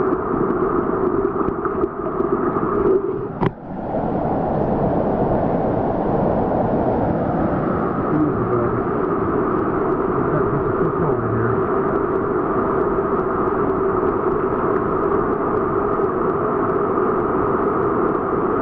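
Steady rushing of a small mountain river's current, even throughout, broken only by a short click and brief dip about three and a half seconds in.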